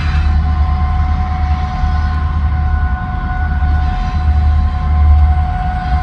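Diesel-electric locomotives, led by Terminal Railroad's EMD SD60Is, climbing a grade under load: a deep, continuous engine rumble with a steady high whine over it.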